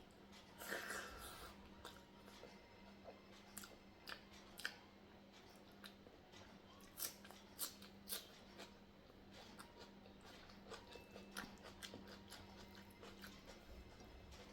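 Close-miked ASMR eating of sambar rice and raw onion salad: faint chewing with sharp wet mouth clicks and crunches. The loudest come about a second in and again around seven to eight seconds in, over a faint steady hum.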